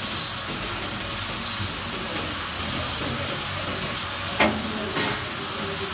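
Stick (shielded metal arc) welding: the electrode's arc hissing and crackling steadily. A sharp metallic clank comes about four and a half seconds in, with a lighter knock about half a second later.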